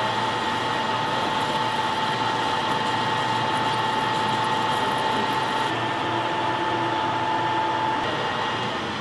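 Metal lathe running, turning the hammer handle's round stock down in diameter: a steady mechanical whir with a constant whine. The sound changes about six seconds in, when the high hiss drops and a lower tone joins.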